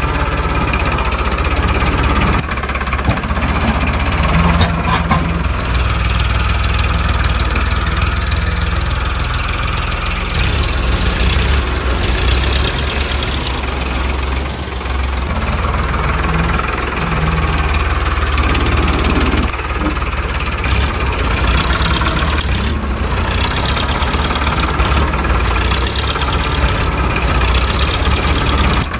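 Tractor engine running steadily at a low idle-like pace, with a few abrupt changes where the sound is cut.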